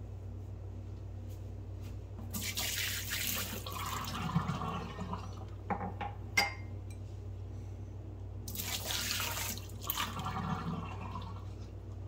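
Water poured from a coffee mug splashing into a stainless steel sink and down the drain, in two pours of about three seconds each. A few sharp clicks come between the pours.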